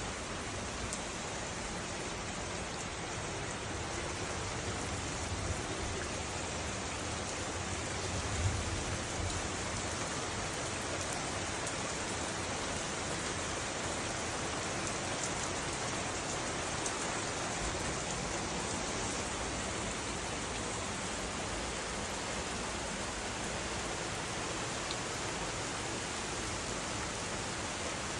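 Steady rain falling on garden foliage and pavement: an even, unbroken hiss.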